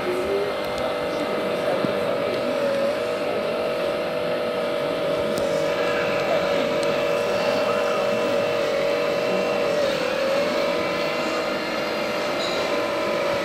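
Hydraulic pump of a radio-controlled Liebherr 944 model excavator running with a steady high whine, its pitch dipping briefly a few times as the boom and bucket work.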